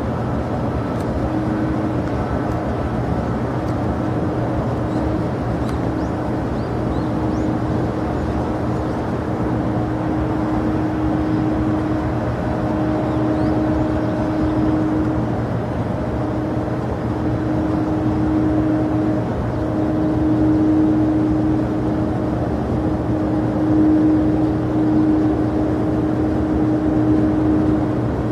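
Steady jet aircraft engine noise at an airport, a continuous rumble with a low, even hum.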